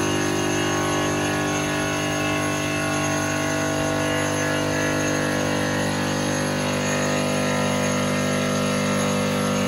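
Granite cutting and profiling machine running steadily, its motor and saw giving a constant whine with many steady tones over a noisy hiss.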